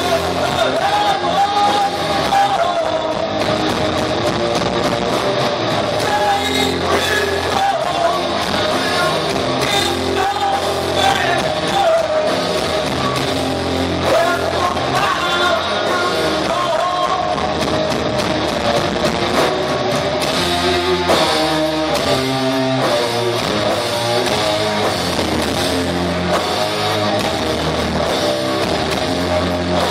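A rock band playing live: electric guitars, bass and drums with a singer's voice, heard from among the audience in a large hall.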